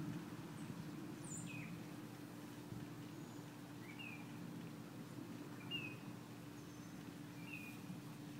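Faint short bird chirps, one every second or two, over a steady low hum.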